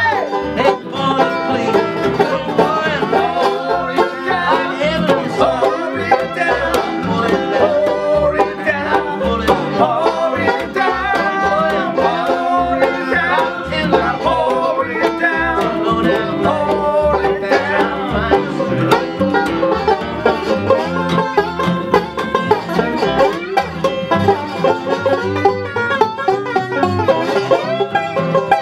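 A bluegrass string band playing an instrumental break: fast banjo picking over acoustic guitar and upright bass.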